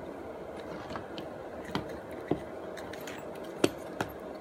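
About four short, sharp clicks and taps of small plastic switch parts and a small screwdriver as an ATV push-start switch is fitted back together, the loudest about three and a half seconds in.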